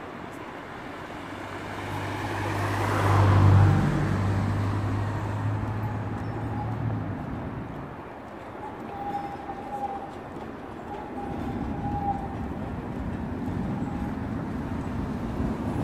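Street traffic on a tram street: a vehicle drives close past, its low hum growing to a loud peak about three and a half seconds in and dropping in pitch as it goes by. Afterwards the traffic is quieter, with faint thin steady tones coming and going.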